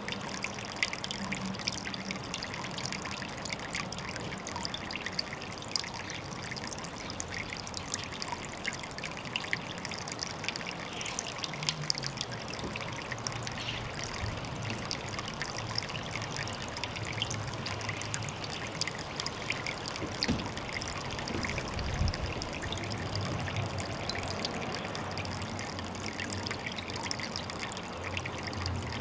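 Water trickling steadily into a pond, a continuous patter of small splashes.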